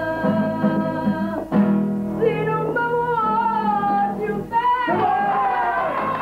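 A song: a singing voice holding long, wavering notes over a plucked-string accompaniment, with breaks between phrases about a second and a half in and again near five seconds.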